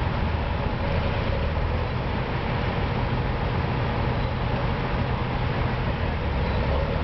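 Vintage quarry dump truck's diesel engine running steadily with its tipping body raised.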